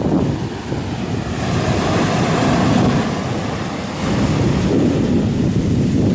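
Rough storm surf breaking and washing on a pebble beach, with strong wind buffeting the microphone. A wave surges in with a rising hiss about a second and a half in and drains back around four seconds, and another builds near the end.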